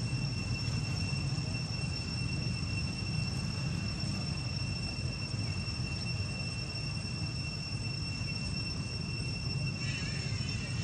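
Steady outdoor background noise: a low rumble with two steady high-pitched whining tones over it, and a brief faint chirp near the end.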